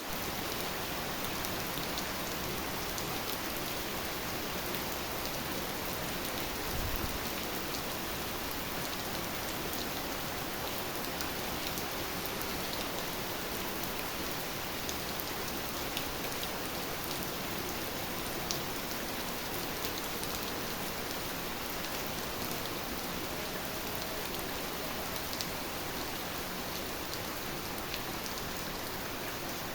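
Heavy rain falling steadily, with sharp ticks of single drops striking a surface scattered through it. There is a brief low thud about seven seconds in.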